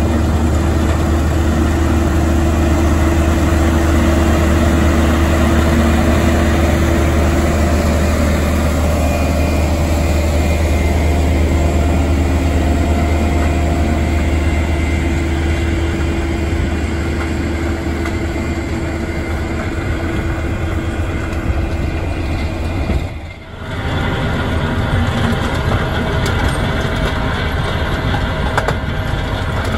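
Massey Ferguson tractor's diesel engine running under load, driving an FAE MTM/HP 225 multifunction head as it grinds and mixes the soil; a steady low drone. The sound dips briefly about 23 seconds in.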